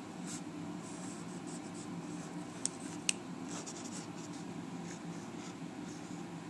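Pencil scratching across paper in short sketching strokes, with two sharper ticks close together near the middle, over a steady low hum.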